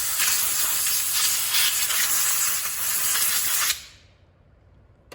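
Compressed-air blow gun hissing steadily as it blows off a walk-behind mower's air cleaner housing, cutting off suddenly near the end.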